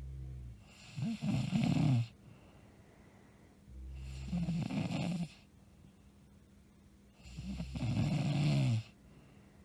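A woman snoring loudly in her sleep: three rough, rattling snores about three and a half seconds apart, each starting as a low drone and swelling into a harsh rasp, with quiet breathing between.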